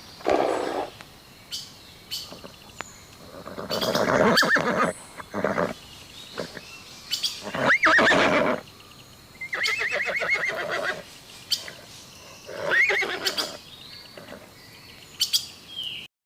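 Horse neighing repeatedly: a series of whinnies, several with a quavering, pulsing sound and a pitch that rises then falls, separated by short gaps with a few sharp clicks between them. The sound cuts off suddenly near the end.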